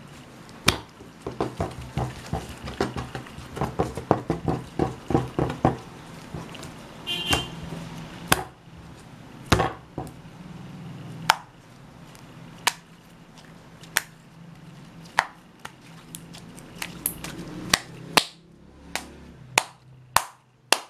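White glue slime being squeezed and kneaded by hand, giving sharp wet clicks and pops: quick runs of them over the first several seconds, then single pops about once a second.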